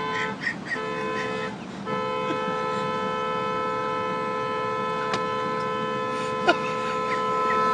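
Car horn wired to the brake pedal, so it sounds whenever the brake is pressed: two short honks, then from about two seconds in one long unbroken honk while the brake is held on.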